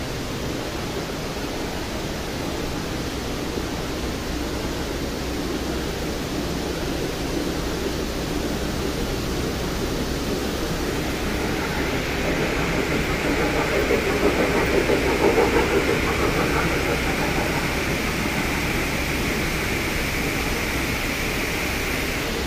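Water falling down the Dubai Mall's multi-storey indoor waterfall, a tall curtain of water: a steady rushing hiss that grows louder about halfway through.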